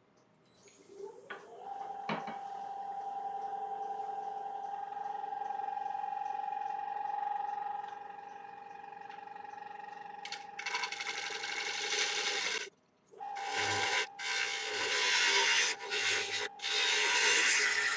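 Wood lathe starting up: its motor whine rises, then holds steady. From about eleven seconds in, a turning tool cuts into the spinning dry yew bowl blank in uneven bursts of scraping and shaving noise, with a short break.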